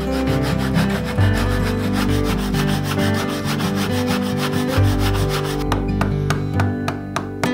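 A backsaw cutting through a poplar board by hand in quick, even strokes, the teeth rasping through the wood; the sawing stops about six seconds in, leaving a few sharp clicks. Background music plays underneath.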